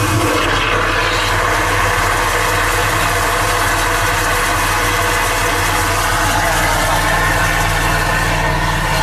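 High-pressure drain-jetting machine running steadily, its engine giving a constant low drone under the hiss of the water jet as the hose clears a blocked sink drain line.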